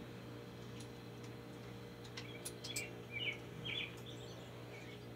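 A few faint bird chirps come through the open back door between about two and four seconds in, with a couple of light sharp clicks among them. A steady low hum runs underneath.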